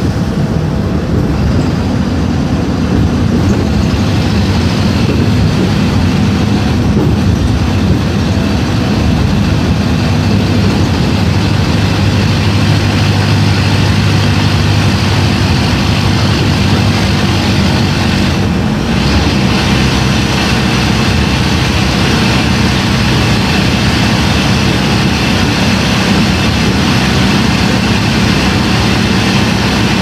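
Mercedes-Benz OM-924 LA four-cylinder inline diesel engine of an OF-1721 BlueTec 5 city bus running steadily, heard through a holed exhaust.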